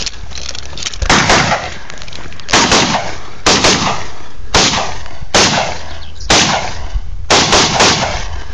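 About a dozen shots from an AR-style rifle over some seven seconds, some in quick pairs and a fast string of three near the end. Each crack is followed by a short decaying echo.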